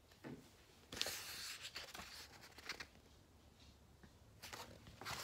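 Faint rustling and handling of a picture book's paper pages, in two short spells about a second in and near the end, with quiet in between.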